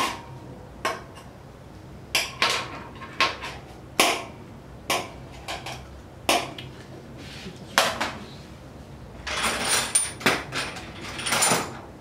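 Steel surgical instruments such as forceps clicking and clinking, a dozen or so sharp separate clicks, with two longer scraping rustles near the end.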